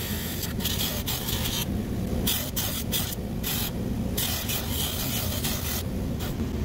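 Palmgren 6-inch variable-speed bench buffer running at about 3600 rpm with a steady hum. A piece of wood pressed against the spinning cotton buffing wheel makes a hissing rasp that breaks off and returns several times as the wood is eased off and pressed back, scraping off hardened, caked-up polishing compound.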